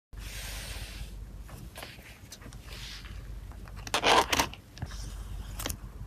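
Handling a ring-binder photocard album with plastic card sleeves: soft rustling, several small clicks and taps, and a louder crinkling, scraping plastic sound about four seconds in.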